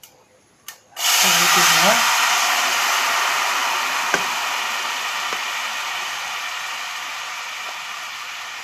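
Rasam broth poured into a pan of hot oil and spluttering tempering seeds: a loud sizzle starts suddenly about a second in, with a brief splash of pouring liquid at its start, then slowly dies down.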